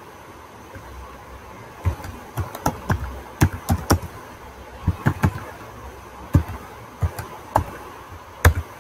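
Computer keyboard typing: irregular key clicks in short quick runs, thinning to single keystrokes in the second half, the loudest one near the end.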